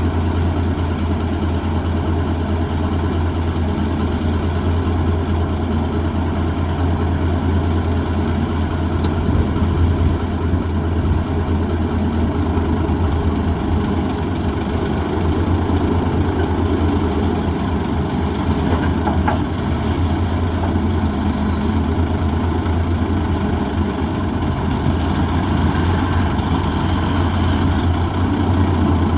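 M816 wrecker's Cummins six-cylinder diesel engine running steadily while the wrecker rolls the trailer over.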